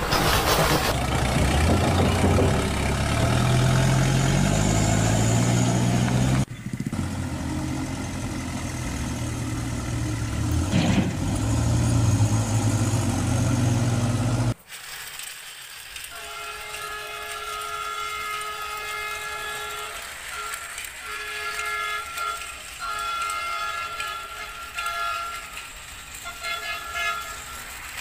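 Battery-powered toy train running on a plastic track: a loud motor whir with changing low electronic tones, broken by sudden cuts. From about halfway, a quieter run of electronic horn-like tones comes in short repeated phrases.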